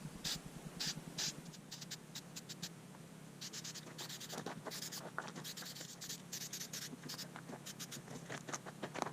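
Sandpaper rubbed by hand over a small wooden band saw box in short, uneven scratchy strokes, sanding back a stain finish that was marred before it had dried.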